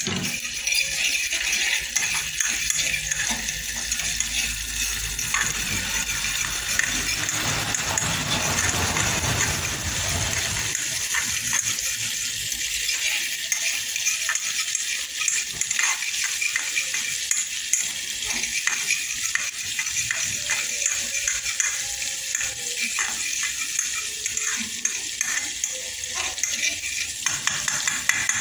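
Ginger sizzling and crackling in hot oil in an aluminium saucepan. The sizzle starts suddenly as the ginger goes in and keeps a steady level.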